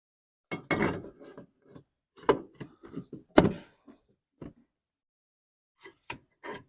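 Handling the metal wick assembly of a kerosene heater while fitting a new wick: a string of clicks, scrapes and knocks, the sharpest about two and three and a half seconds in.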